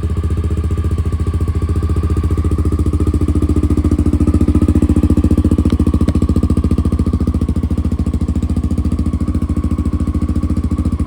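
Carbureted motorcycle engine idling steadily on half choke shortly after a cold start. The idle swells a little in loudness for a few seconds midway, then settles.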